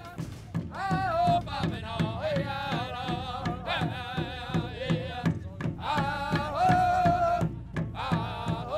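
First Nations drum group singing over a large hide-covered powwow drum, the drum beaten in a steady, even rhythm under long, wavering sung notes.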